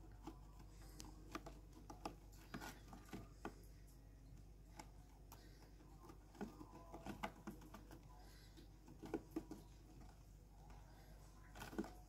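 Faint, irregular clicks and scratches as budgerigar chicks and their hen shift about on wood shavings in a nest box.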